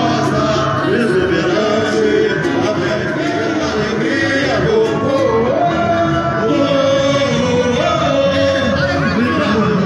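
Samba-enredo played live by a samba school during its parade: the school's theme song sung over its drum section, in a steady, unbroken groove.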